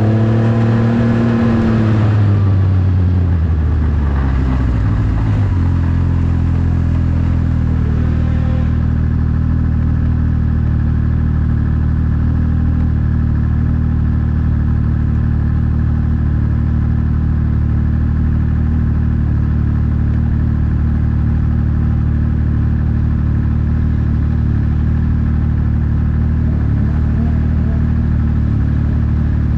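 Snowmobile engine running, its pitch falling over the first five seconds or so, then holding steady.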